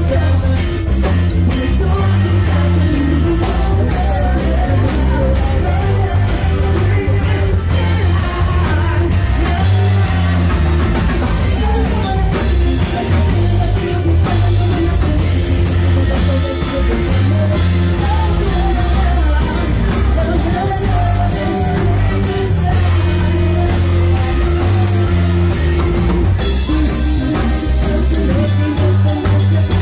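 Live band playing a song: electric bass, keyboards and drum kit, with a singer, loud and steady throughout.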